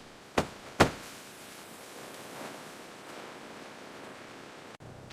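Two sharp knocks about half a second apart, less than a second in, followed by a faint steady hiss.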